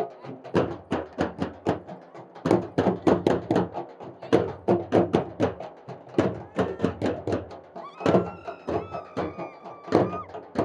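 Group of Adivasi folk drums, rope-tensioned barrel drums and a large frame drum struck with sticks, playing a fast, dense beat. A high held tone joins briefly near the end.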